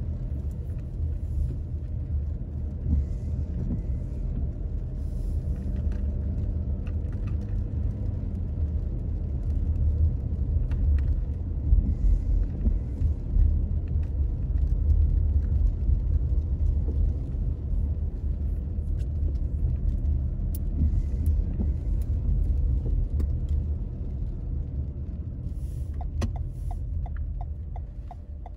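Steady low road rumble of a moving vehicle, with a few light clicks scattered through it. A quick run of regular ticks comes near the end.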